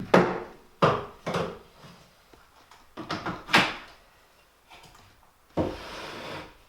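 Several sharp knocks and clunks, some in quick pairs, then a longer scraping rustle near the end.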